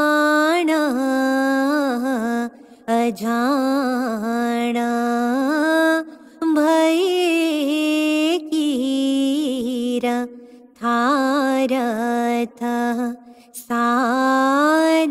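A woman singing an Ismaili devotional ginan solo, with no instrument heard: long drawn-out notes with wavering, gliding ornaments, in phrases broken by short pauses for breath every few seconds.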